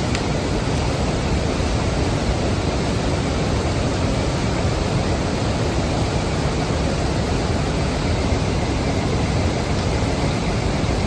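Swollen floodwater of a river pouring down through a lock, a steady, even rush of water.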